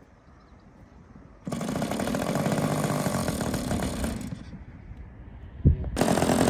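A small model-aircraft combustion engine starts about a second and a half in and runs with a fast, loud buzz, then dies away about three seconds later; after a single knock it starts again just before the end and runs on.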